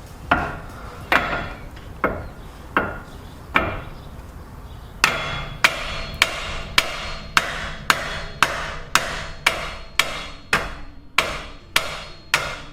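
A hammer striking metal suspension parts, likely to shock the lower ball joint stud loose. A few spaced blows come first, then a steady run of about a dozen blows, a little under two a second, each with a short metallic ring.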